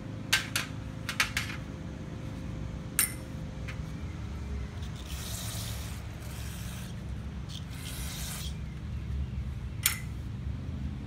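Aerosol carburetor cleaner sprayed in two hissing bursts midway through, a longer one and then a shorter one. Small metal carburetor parts clink several times near the start and once near the end.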